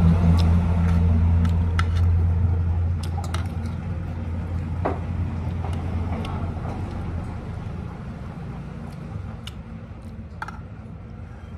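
A motor vehicle's engine running with a low steady hum that fades gradually, while a spoon and fork clink against a plate and bowl now and then.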